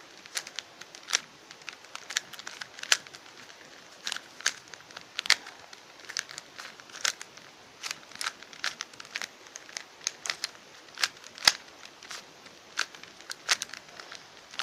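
Plastic 3x3 Rubik's cube being scrambled by hand: its layers are twisted quickly, giving irregular sharp clicks and clacks, a few a second.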